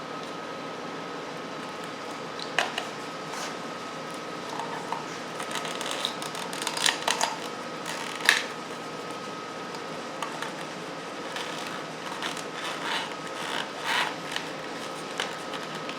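Scattered clicks and rustles of wires and plastic connectors being handled and pulled through a motorcycle's headlight bucket, over a steady background hum.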